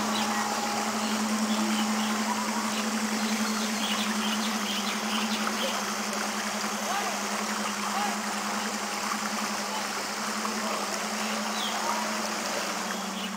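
Steady hum of the small engine running a floating river water pump, over a hiss of flowing water, with scattered faint high chirps.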